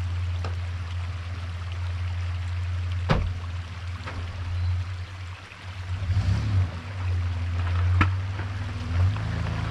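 Toyota Land Cruiser engine running low and steady while the truck crawls slowly forward over a rocky trail, its pitch and level swelling unevenly under load around the middle. Two sharp knocks stand out, about three seconds in and again near the end.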